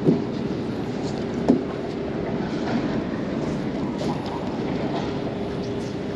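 Steady mechanical hum with one even tone, under wind and water noise, with two sharp knocks about a second and a half apart near the start.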